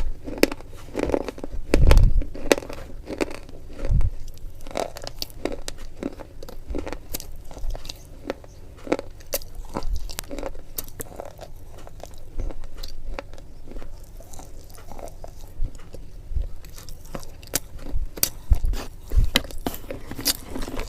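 Close-miked eating: chewing and biting with many irregular sharp crunches, a few heavier bites among them.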